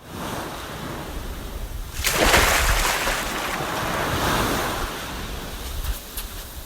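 Water sloshing and splashing, with wind buffeting the microphone; a louder rush of splashing comes in about two seconds in and slowly dies away.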